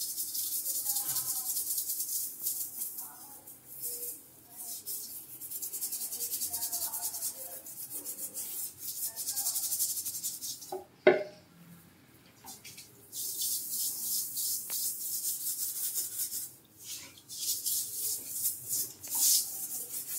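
Scrub pad scrubbing along grimy tile grout, a fast rasping scrub in long spells. It stops for a couple of seconds just after a sharp knock about halfway through.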